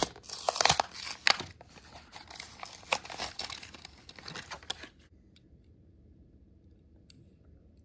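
A Hot Wheels blister card torn open by hand: the plastic bubble crackles and the cardboard backing rips, in a run of sharp crinkling tears that stops about five seconds in.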